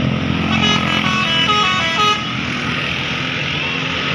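Bus's Basuri 'telolet' multi-tone air horn playing a short melody, its notes stepping up and down for about a second and a half before cutting off, over the bus engine running and street noise.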